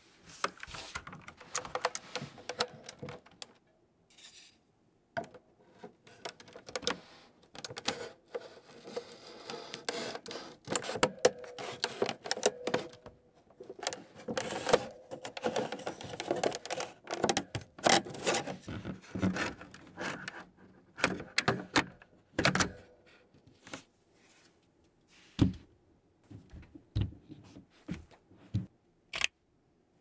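Scraping and clicking as a thin blade pries apart the plastic case of a DECK Hassium mechanical keyboard. Several sharp knocks of plastic being handled come near the end.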